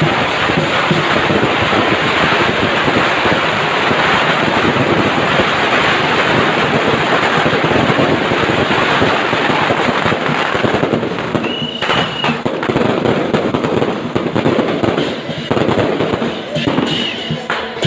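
Long strings of firecrackers going off in a dense, continuous crackle. About eleven seconds in, the crackle thins out into more separate, irregular bangs.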